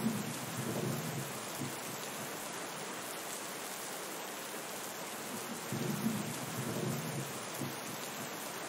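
Steady heavy rain hiss, with two rolls of thunder: one at the start and another about six seconds in, each low and lasting a couple of seconds.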